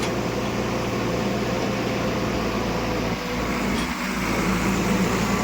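Heavy diesel engine running steadily, a low even hum.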